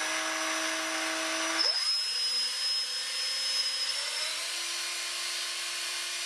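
DeWalt 18V cordless drill running, spinning a cotton swab held in its chuck, with a steady motor and gear whine. Its speed drops about a second and a half in, then picks up slightly around four seconds.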